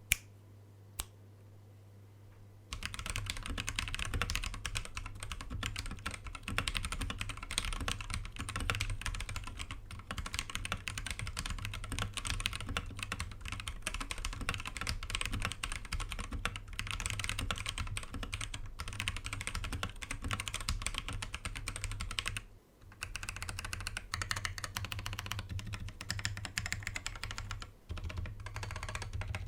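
Typing on an Akko 3068B mechanical keyboard with Akko Jelly Blue tactile switches, factory-lubed stabilizers and foam under the PCB: a single key click about a second in, then rapid, continuous keystrokes from about three seconds in, with a short pause about two-thirds of the way through.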